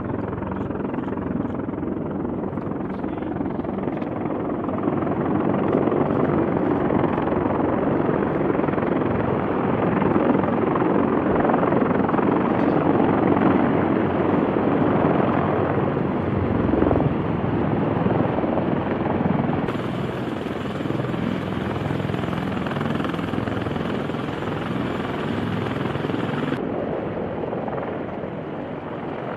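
CH-53 heavy-lift helicopter's rotor and engines running close by, a continuous heavy rotor noise that grows louder a few seconds in, stays strong through the middle and eases off near the end.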